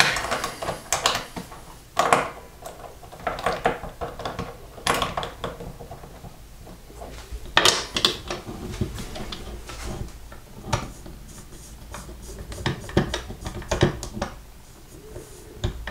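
Irregular clicks, taps and light scrapes of metal and plastic parts as a watch case is clamped into its holder and the dies are set on a Horotec case-back press, ready to remove the case back.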